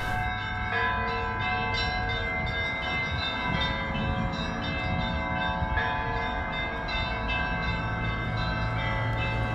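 Ambient instrumental music of long ringing bell-like tones, a new one struck about every second and each left to sustain, over a low rumbling drone.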